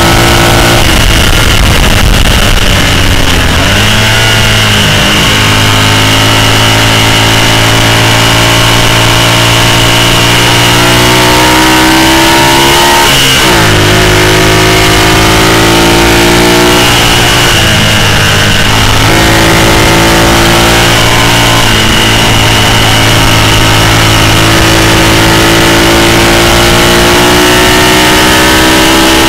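Racing sidecar's engine at full throttle, heard from on board: the pitch climbs and drops sharply again and again as it runs through the gears. A steady rush of wind and road noise lies beneath.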